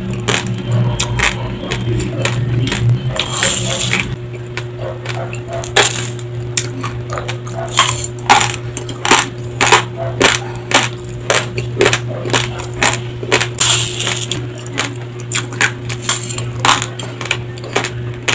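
Close-miked chewing of dry, uncooked long-grain rice: sharp, irregular crunches as the hard grains crack between the teeth, about one or two a second, over a steady low hum.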